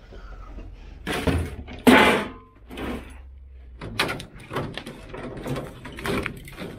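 Scrap metal and van bodywork being handled as a van is unloaded. Two loud bangs come about one and two seconds in, the second the loudest. A run of lighter knocks and clicks follows.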